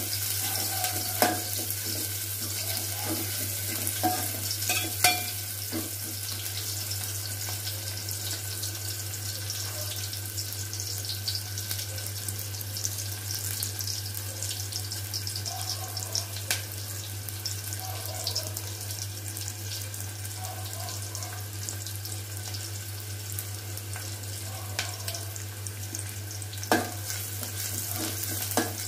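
Sliced onions frying in hot oil in an aluminium pot, a steady sizzle, being browned toward golden. A steel spoon stirs them, clinking and scraping against the pot a few times, loudest near the end, over a low steady hum.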